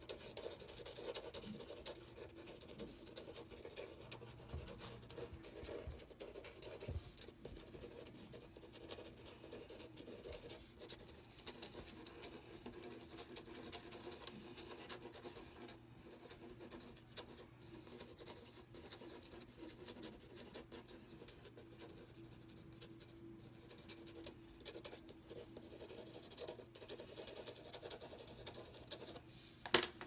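Pencil scratching on paper in quick back-and-forth scribbling strokes, shading a drawing. A single sharp click near the end.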